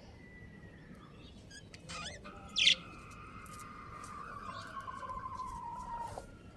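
Budgerigars chirping: a short warbling chirp about two seconds in, then a loud sharp chirp. Under them a long, slowly falling whistled tone runs for about four seconds.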